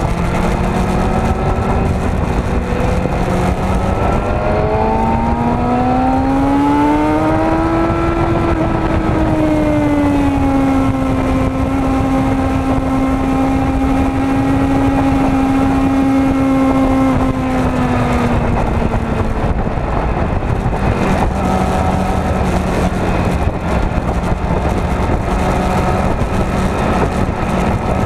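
Yamaha WR250R supermoto's single-cylinder engine pulling hard on track, with heavy wind rush. The revs climb for a few seconds, hold, drop back about two-thirds of the way through, then start climbing again at the end.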